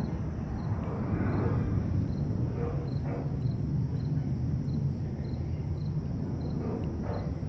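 Jet airliner flying overhead at altitude, a steady low rumble.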